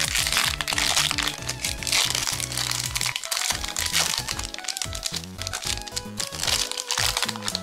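Plastic booster pack wrapper crinkling and crackling in bursts as it is handled and torn open by hand, over background music.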